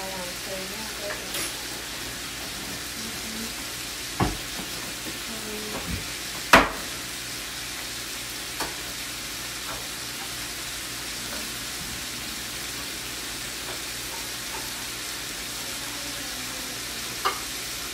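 Bacon strips sizzling steadily in a frying pan, with a few sharp clicks over the sizzle, the loudest about six and a half seconds in.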